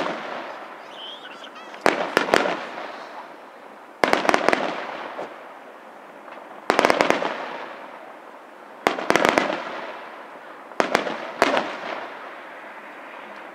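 Aerial firework shells bursting in a display. There are six clusters of sharp bangs, roughly every two seconds, and each one is followed by a long, fading, echoing rumble.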